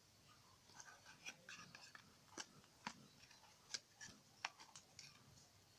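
Faint handling of a clear plastic case and cardboard box packaging: soft rustling with a handful of light, scattered clicks and taps.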